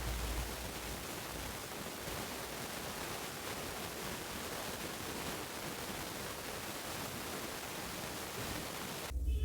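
Steady hiss with no distinct sound of its own, like a recording's noise floor. Just before the end it cuts off abruptly and a low hum takes over.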